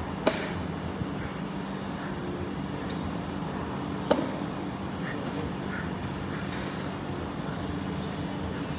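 A dumbbell knocking down on a rubber floor mat during dumbbell deadlifts: two sharp knocks, one right at the start and one about four seconds in, with a faint tap near one second. A steady low hum runs underneath.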